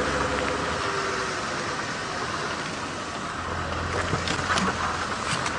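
Safari vehicle engine running as the vehicle creeps slowly through the bush, a low rumble that grows louder about three and a half seconds in, with a few sharp clicks and knocks.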